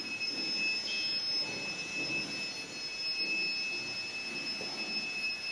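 Indistinct murmur of a crowd talking, under a steady high-pitched whine of two pure tones.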